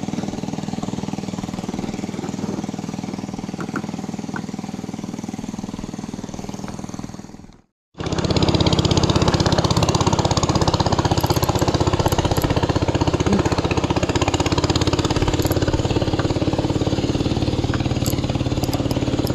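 Small boat engine running steadily. It breaks off briefly about seven and a half seconds in, then comes back louder and steady as the boat travels.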